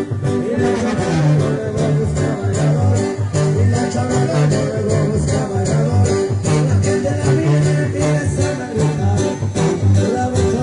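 Live sierreño band playing: acoustic guitars strumming over a tuba bass line that pulses on the beat, with singing.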